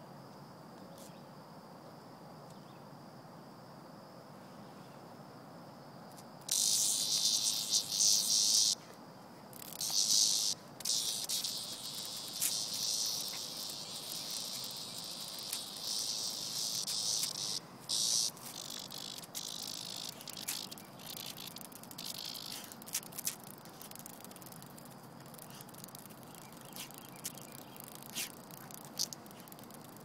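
A cicada's loud, high-pitched buzz starts suddenly about six seconds in and comes in long stretches with short breaks, then weakens into scattered short buzzes. It is the distress buzz of a cicada being nosed and pawed by a dog. Before it starts, a faint steady insect drone is heard.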